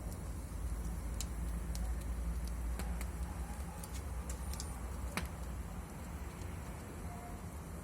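Wood fire crackling in a fireplace: irregular sharp pops and snaps, about a dozen, the loudest about five seconds in, over a steady low rumble.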